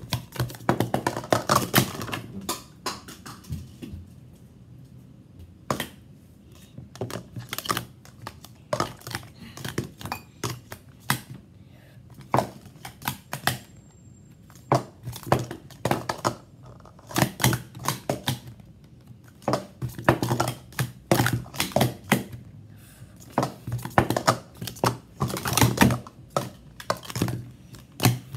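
Plastic sport-stacking cups clacking together and tapping down on a stack mat as they are stacked up and collapsed: quick runs of rapid clicks in the first few seconds and again about two thirds of the way in, with scattered single clicks between.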